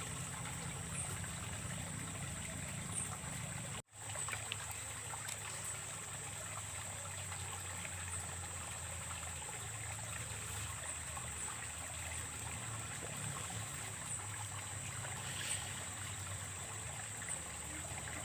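Water trickling and flowing in a ditch, an even running noise, with a steady high-pitched whine throughout. The sound drops out briefly about four seconds in.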